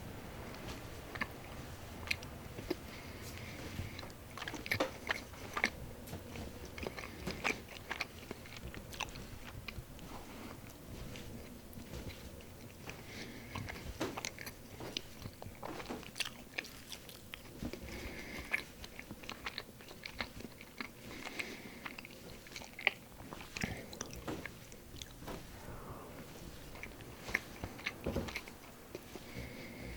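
Bread being bitten and chewed close to the microphone: an irregular run of crisp, crunchy crackles and small clicks.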